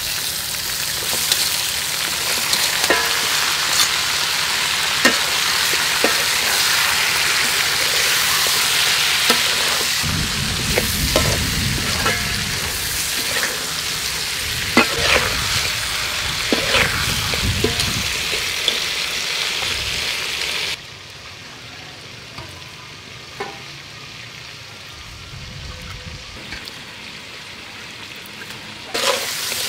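Oil sizzling hard in a wok as chopped ingredients fry, with the scrape and click of a spatula stirring against the pan. About two-thirds through it cuts off abruptly to a much quieter stretch with a few small knocks, and the sizzling comes back near the end.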